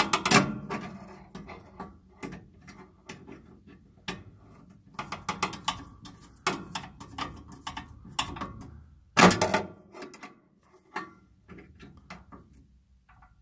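Screwdriver driving the flame sensor's mounting screw back into the furnace's metal bracket: a run of irregular clicks and scrapes of metal on metal, with louder knocks at the very start and about nine seconds in.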